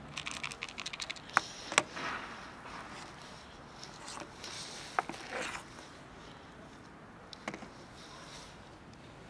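A plastic tub of dry cat kibble handled and set down on a wooden bench: a quick rattle of clicks, then two sharp knocks, with a few scattered knocks and rustles after.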